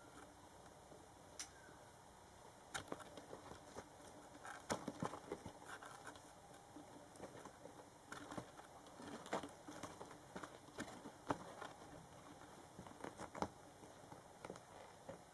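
Scottish fold kitten's paws and claws scrabbling at a canvas bag and carpet while it plays: soft, irregular scratches, rustles and taps, with a couple of sharper clicks late on.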